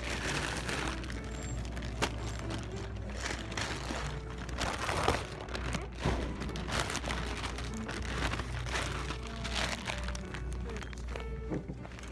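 Irregular rustling and crinkling handling noise, a phone microphone rubbing against clothing and hair, with faint background music and a steady low hum.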